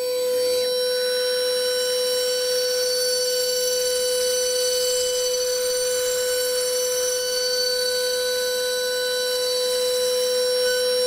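Steady, unchanging buzzing whine of running machinery: one held tone with overtones over a faint hiss.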